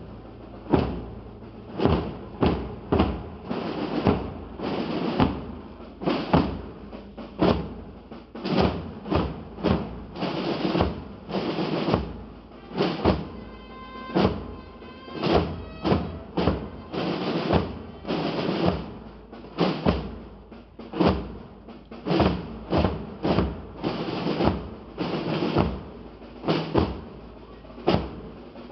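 A drum corps of large processional drums struck with padded mallets, beating a slow marching rhythm of about two strokes a second. One drum is close to the microphone. About halfway through, a brief faint pitched tone sounds under the beat.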